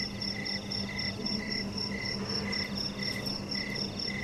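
Insects chirping steadily: a high, quick pulsed call at about four pulses a second and a lower, slower one at about two a second, over a faint low hum.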